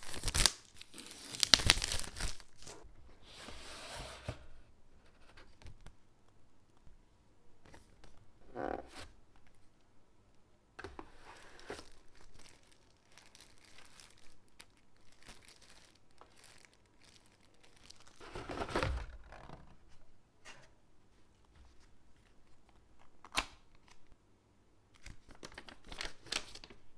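Packaging handled during an unboxing. Plastic shrink-wrap is torn off a cardboard box in loud bursts at the start, followed by intermittent crinkling of a plastic bag and rustling of a folded paper manual being opened, with an occasional sharp click.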